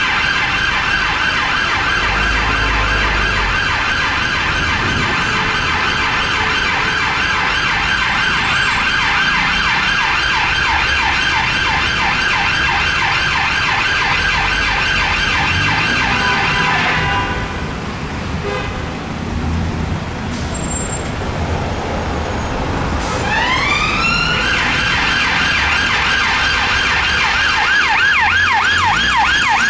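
Siren of a Metropolitan Police BMW 5 Series traffic car on an emergency run, sounding a fast, rapidly repeating yelp. It cuts out about halfway through, then winds back up with a rising sweep and returns to the fast yelp, over low traffic rumble.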